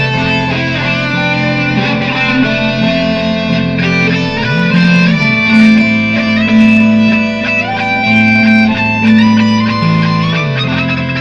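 Electric guitar improvisation in layers: a looped low riff holds steady while a lead line plays sustained notes that slide between pitches.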